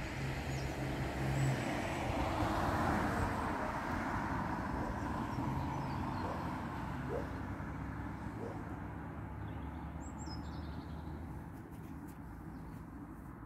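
A car passing on the road, its tyre noise swelling a few seconds in and then slowly fading away, over a steady low rumble.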